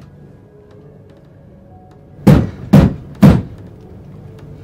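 Three loud, heavy knocks in quick succession, a fist striking wood, over a faint music score.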